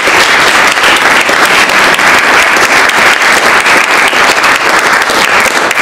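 Audience applauding: many hands clapping at once in a dense, steady stream of claps.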